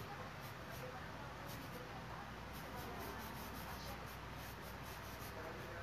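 A brush or drawing stick scratching across a large stretched canvas in repeated short strokes, over a steady background hiss.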